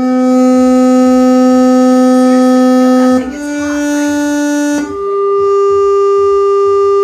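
Malfunctioning electronic doorbell chime sounding long, steady electronic tones: a low note held for about three seconds, a slightly higher one for about a second and a half, then a higher note held to the end.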